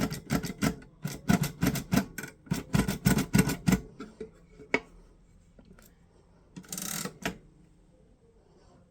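Perkins Brailler keys being struck in a quick series of sharp mechanical clacks, about four or five a second, that stop after about four seconds. One more clack follows, then a single longer rasping stroke of the mechanism about seven seconds in.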